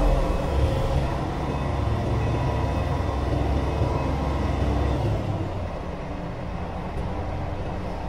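Komatsu hydraulic excavator's diesel engine and hydraulics running under load as the machine swings a full bucket of earth. The low rumble is strongest for about five seconds, then eases off.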